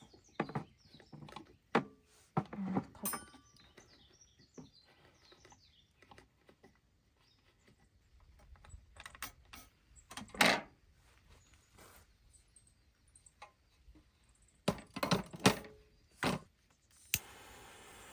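Camping gear being handled: scattered clicks, taps and knocks, with the loudest knock about ten seconds in and a quick run of knocks a few seconds later. A steady hiss starts suddenly near the end.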